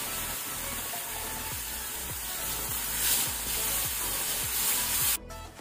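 Tomato puree sizzling in hot oil over fried onions in an aluminium kadai while a spatula stirs it in. The sizzle cuts off suddenly near the end.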